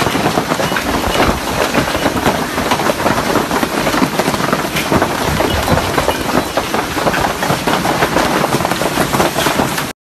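Hailstorm: a loud, dense clatter of hailstones and rain pelting down without a break, full of sharp little impacts. It cuts off suddenly near the end.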